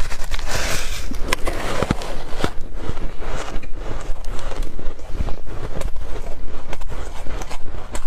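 Snow crunching in an irregular run of crackles and sharp clicks, densest in the first second or so.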